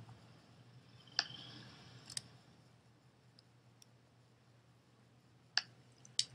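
Faint clicks from a computer being operated: two in the first couple of seconds and two near the end, over a low steady hum.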